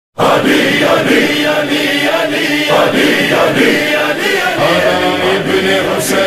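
A choir-like chorus of voices chanting in layered parts, the vocal-only backing of a manqabat recording, coming in suddenly at the start. A low held drone joins about two-thirds of the way through, and there is a brief high hiss near the end.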